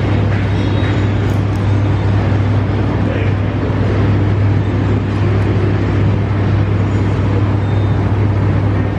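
Loud room noise of a busy small eatery: a steady low hum under an even rushing noise, with faint voices in the background.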